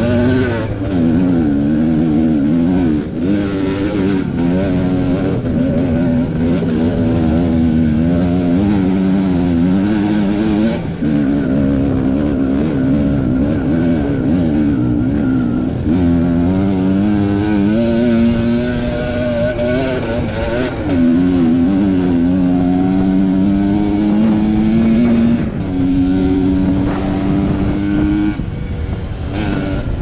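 Kawasaki KMX125's single-cylinder two-stroke engine, fitted with a V-Force 3 reed valve, being ridden hard, its pitch repeatedly rising and falling as the rider works the throttle and gears.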